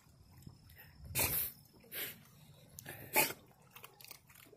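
Small flat-faced dog snorting and sneezing with its muzzle in the lake water, three short bursts.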